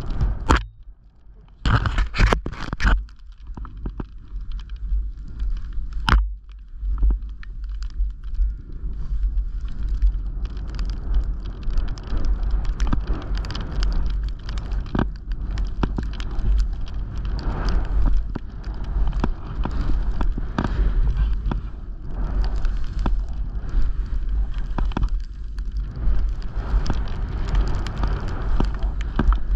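A downhill run through soft powder snow in the trees: a steady hiss and scrape of the snow, with low wind rumble on the microphone. Scattered crackles and knocks run throughout, with a few louder ones in the first few seconds and again around six seconds in.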